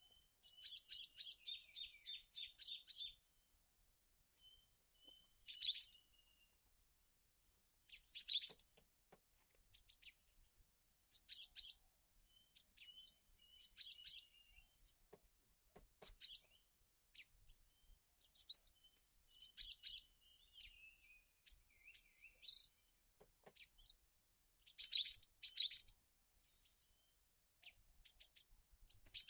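Cinereous tits (gelatik batu) calling, with bursts of quick high chirps and short whistled notes repeated every second or few seconds.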